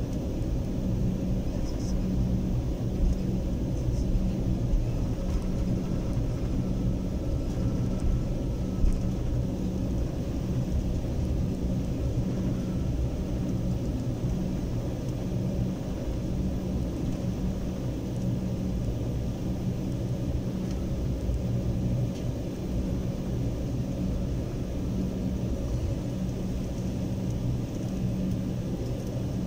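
Airliner cabin noise while taxiing after landing: a steady low rumble, with the even hum of the jet engines at idle running through it.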